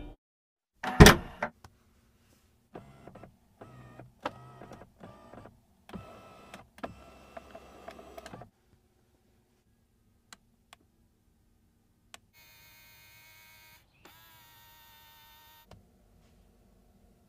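Tesla Model 3: a car door shuts with a thud about a second in, then the electric power-window motor whirs in several short bursts. Near the middle, two electronic tones sound one after the other.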